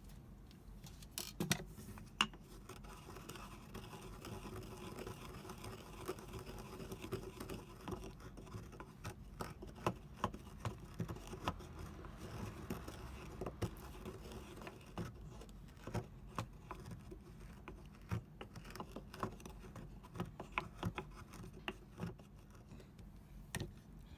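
Wood campfire crackling, with irregular sharp pops and snaps over a steady low hiss.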